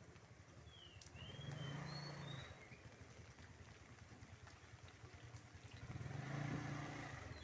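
Motor vehicles passing twice, a low engine hum swelling about a second and a half in and again near the end. Short high bird chirps come in about a second in, over a steady hiss of rain.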